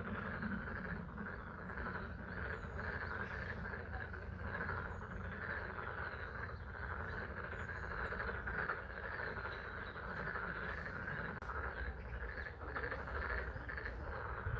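A dense, continuous chorus of frogs calling at a pond, with steady spring rain falling.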